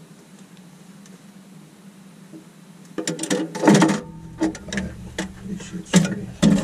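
A low steady hum, then from about halfway a run of loud clatters, knocks and rustles as a binder and papers are handled and a hinged panel is lifted right by the microphone.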